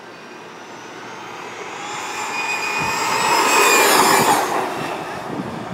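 Traxxas Slash 4x4 RC truck on monster-truck tyres, its electric motor and gears whining over tyre rush as it speeds toward and past at full speed. It grows steadily louder, is loudest about four seconds in, then fades as it goes by.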